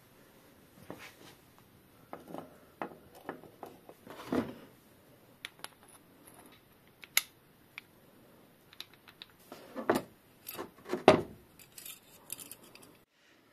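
Metal tool parts clinking and clicking as they are handled and fitted together: a bottom bracket facing tool's toothed cutter and spring slid onto its steel shaft. Irregular light knocks and taps, busiest near the end.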